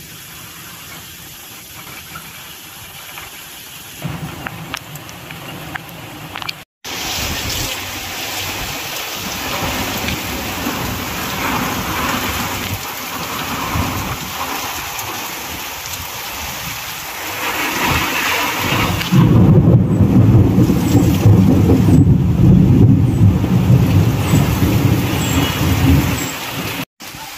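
Heavy monsoon rain pouring in a storm, a steady hiss that grows louder about seven seconds in. In the last third a deep rumble makes it loudest.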